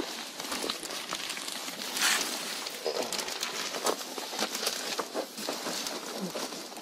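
Fiberglass insulation batts being handled and shoved into place under a floor: rustling and crinkling with small knocks and scuffs, louder for a moment about two seconds in.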